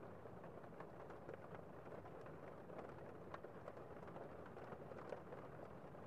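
Heavy rain outside, heard faintly from inside a room: a steady, muffled hiss dotted with irregular taps of drops striking.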